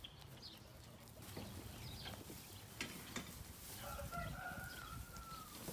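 A rooster crowing once, faint, one drawn-out call of nearly two seconds that starts about four seconds in and drops slightly at the end.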